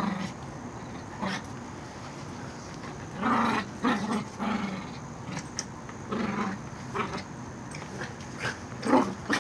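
Dogs growling in play over a chew bone, in several short spells with pauses between.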